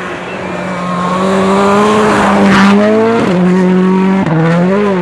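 Rally car engine running hard on a snow stage. Its pitch climbs slowly, then drops sharply twice, about three and four seconds in, as it changes gear, with a rush of tyre and snow noise midway.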